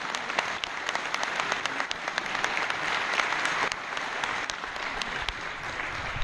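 A group of spectators applauding, with one person's sharp claps close by standing out over the rest.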